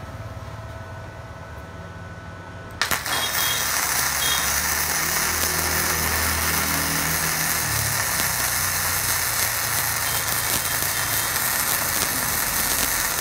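Arc of a gasless flux-cored MIG welder (YARU MIG-250Y), struck about three seconds in and then crackling steadily as it lays a bead on thick steel, about 7 mm, at roughly 130 A. Before the arc strikes, only a low steady hum.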